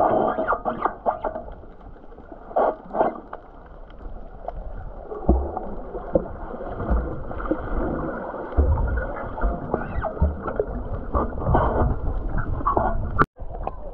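Muffled water sloshing and gurgling with irregular low thumps, as picked up by a camera at or in the water. A sharp click and a brief dropout come near the end.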